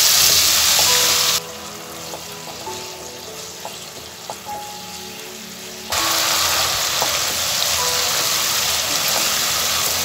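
Onion and spice masala sizzling and bubbling in hot oil with a little water just added, while being stirred and fried down with a wooden spatula. The sizzle cuts off abruptly about a second and a half in, leaving only soft background music for about four and a half seconds. It then comes back at full strength.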